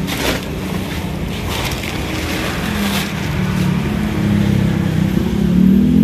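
Plastic wrapping crinkling and rustling in several short bursts as it is pulled off a birdcage, over a steady low engine hum from a vehicle that grows louder over the last few seconds.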